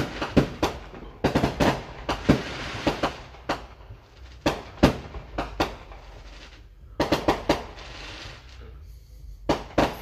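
Aerial fireworks bursting overhead in rapid volleys of sharp bangs and crackles, heard from inside a car. The bangs thin out in the middle, then another quick volley comes about seven seconds in.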